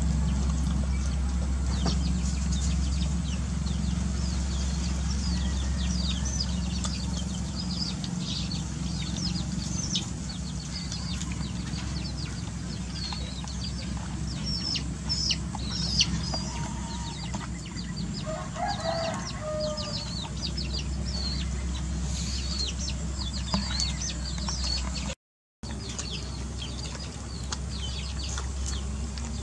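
Puppies lapping and chewing wet rice from a plastic bowl, many small wet clicks, with chickens clucking nearby over a steady low hum. The sound drops out briefly near the end.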